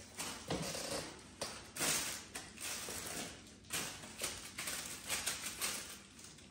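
A basenji puppy dragging and shaking a long torn white sheet on a laminate floor: repeated bursts of crinkly rustling, with light taps from its paws and claws.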